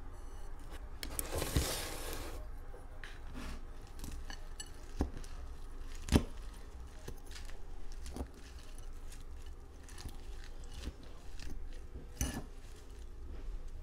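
Metal fork clinking and scraping against a plate as salad is stirred and forked up, with scattered sharp clinks, the loudest about six seconds in and near the end. A short rustling hiss comes about a second in.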